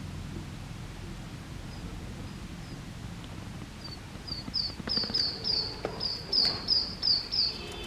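A small bird chirping: short, high, slightly falling chirps, faint at first, then loud and quick at about three a second from about halfway through.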